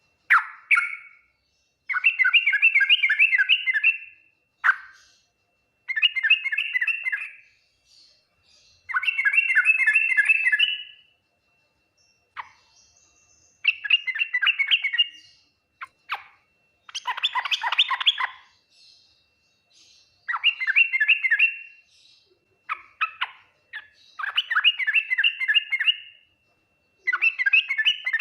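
Yellow-vented bulbul (trucukan) singing: repeated bubbling phrases of fast, warbled notes, each a second or two long, separated by short pauses, with a few single sharp call notes between them.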